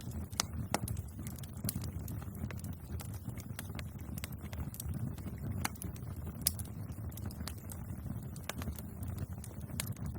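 Wood fire burning with a steady low rumble of flames and irregular sharp crackles and pops from the burning wood, a few louder pops standing out.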